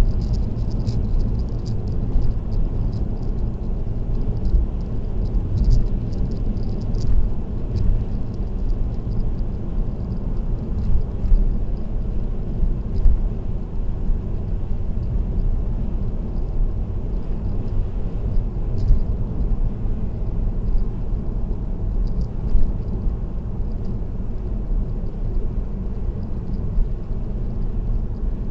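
Steady low road rumble of a car cruising at expressway speed, mostly tyre and road noise, picked up by a dashcam. A few faint light ticks come in the first several seconds.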